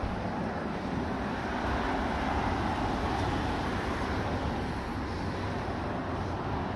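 Steady road traffic noise with no pitched tones, swelling a little about two seconds in.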